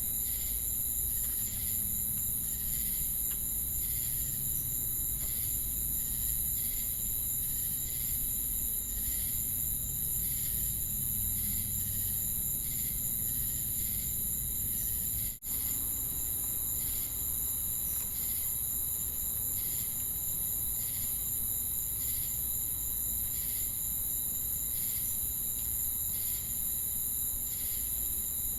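Chorus of crickets and cicadas: a steady high-pitched trill under an evenly pulsing chirp, about three chirps every two seconds. The sound drops out for a split second about halfway through.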